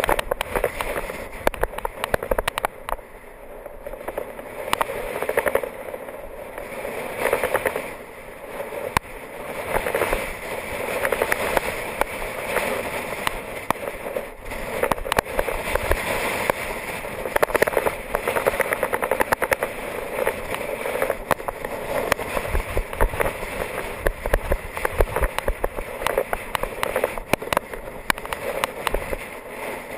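Wind buffeting an action camera's microphone on a moving road bike, swelling and easing, with dense crackling and rattling from road vibration coming through the camera mount.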